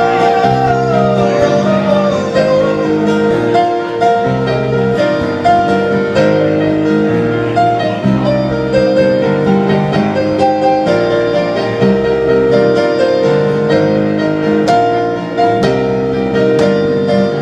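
Live band playing an instrumental passage of a country ballad, led by piano chords over a steady sustained note, with a wavering held note fading out in the first couple of seconds.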